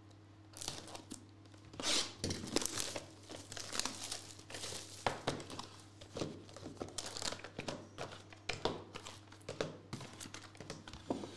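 Plastic shrink wrap crinkling and tearing as it is stripped off a trading-card hobby box, then the cardboard box opened and the small card boxes inside slid out and set down, with irregular crackles and rustles throughout.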